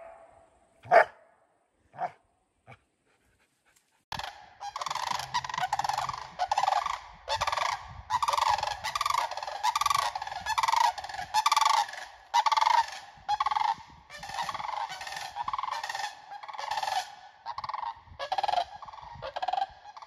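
A dog barks a few times, the first bark loud and the later ones quieter. From about four seconds in, a goose honks over and over, a long, loud run of about three honks every two seconds.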